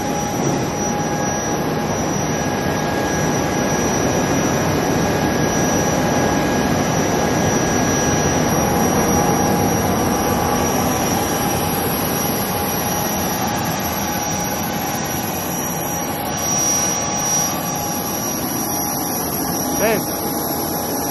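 Jet aircraft engine running, a steady loud rush of noise with a thin, steady high whine over it.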